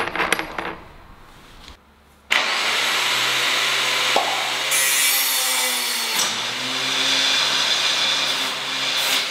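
A few metal clinks as the cutting disc is handled on the spindle, then about two seconds in a HiKOKI angle grinder switches on and runs steadily at full speed with a loud hissing whir. Its disc is mounted with the flange nut not properly tightened.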